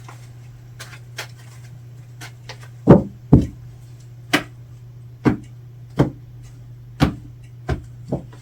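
A deck of tarot cards knocked and laid down on a tabletop: a series of sharp knocks, the two loudest close together about three seconds in, then roughly one a second, over a steady low hum.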